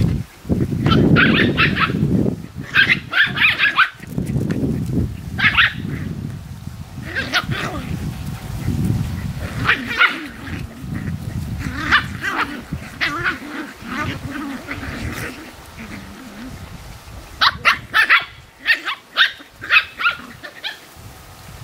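Australian Terrier puppies yipping and barking in play, in short scattered bursts that come thickest near the end. A low rumble runs beneath, loudest in the first few seconds.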